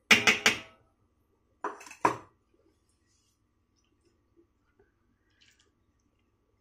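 Steel bowl clinking against a metal parat: a quick cluster of three clinks at the start, then two more about two seconds in, the last with a short ring.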